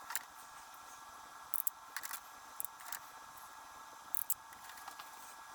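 A few short, sharp clicks spaced irregularly, roughly a second apart: a hand crimping tool crimping small connector pins onto thin wire.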